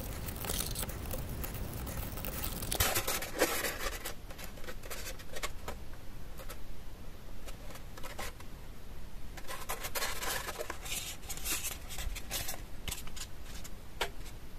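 Foam boat hull and foam blocks handled and rubbed by hands, giving irregular short scrapes and light taps, busiest about three seconds in and again about ten seconds in.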